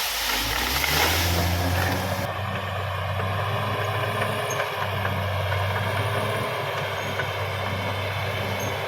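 Caterpillar D6R XL bulldozer's diesel engine running steadily under work, with a broad hiss over it for the first two seconds.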